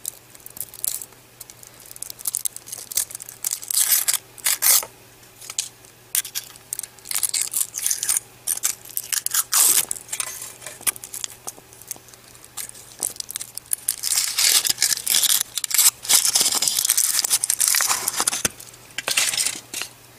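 Foil wrapper of a Kinder Surprise chocolate egg being peeled off by hand: short bursts of crinkling and tearing, with a longer run of steady crinkling in the last third.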